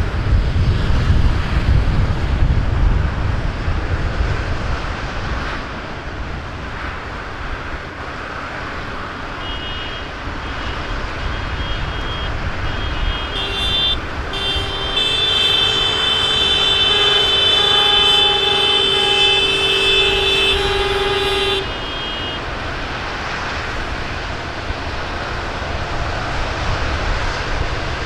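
A column of diesel farm tractors driving past, engines running and tyres on the road, with a heavy low engine rumble in the first few seconds. From about ten seconds in, horns sound; a long steady horn blast holds for about eight seconds and then cuts off suddenly.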